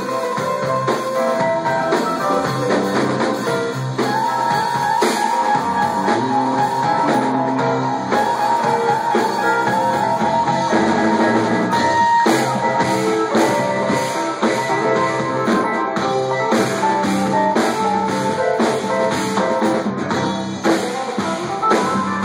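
Live rock band playing an instrumental passage: electric and acoustic guitars over a drum kit and keyboard, with a long held high note from about four seconds in to about ten seconds in.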